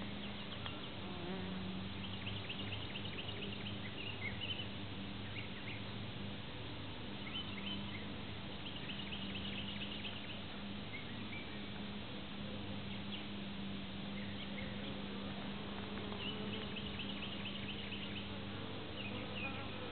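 Honeybees buzzing steadily around an open hive: a continuous low droning hum of many wings.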